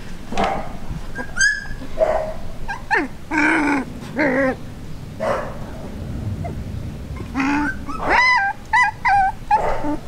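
Young border collie puppies yipping, whining and giving small barks: about a dozen short high-pitched calls, with a quick run of short whines near the end.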